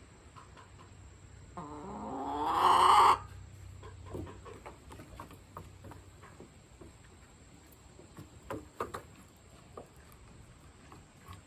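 An animal's drawn-out call, rising in pitch and growing louder for about a second and a half before cutting off suddenly, followed by scattered soft clicks and taps.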